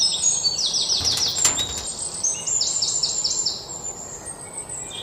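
A bird calling in runs of quick, high, downward-sweeping chirps, about five or six in a row, in two bursts about two seconds apart, over a steady background hiss. A few sharp clicks come about a second and a half in.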